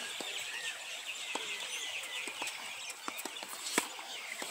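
Birds chirping busily and without pause, with scattered sharp taps of a tennis ball on the hard court and racket; the loudest tap comes near the end.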